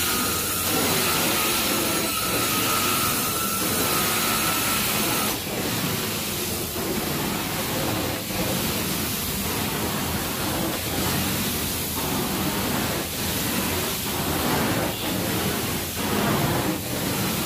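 Carpet extraction wand drawn back and forth over carpet, with a steady suction hiss. A thin high whistle runs over it and stops about five seconds in. From then on the sound dips briefly about once a second with the wand strokes.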